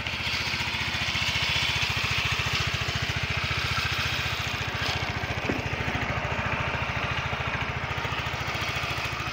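Yamaha Mio 125 (Mio M3) scooter's single-cylinder four-stroke engine idling steadily. It runs smooth on a newly fitted cam chain tensioner, with no cam chain rattle.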